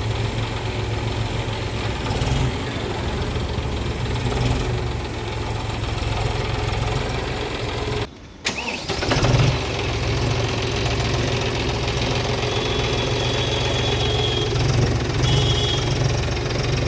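John Deere 5105 tractor's three-cylinder diesel engine running steadily, with a short break about eight seconds in before it picks up again.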